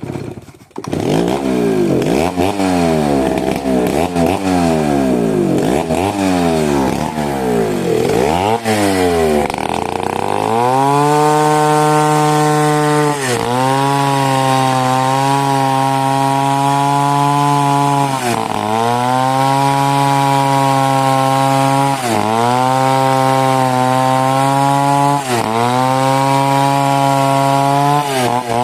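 Two-stroke chainsaw starting up and revved up and down over and over for about ten seconds. It is then held at a steady high pitch, dipping briefly every few seconds, as it cuts through mahogany wood.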